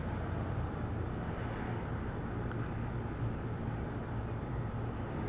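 Steady low hum and hiss of background noise, with a faint tick about a second in from the pick working the pins of a tubular lock.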